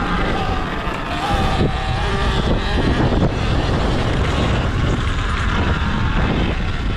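Sur-Ron Ultra Bee electric dirt bike riding over a bumpy dirt track: the motor's whine rises and falls in pitch with speed, over wind buffeting on the microphone and knocks and rattles from the bike.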